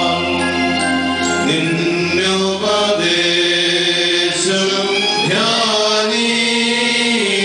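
Liturgical chant of the Syro-Malankara rite, sung by male voices in long held notes over a low steady drone, the melody moving to a new note every second or two.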